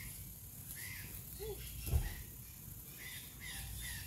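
A bird chirping: short repeated chirps, a couple early on and then a quicker run of about three a second near the end. A single dull thump about two seconds in is the loudest sound.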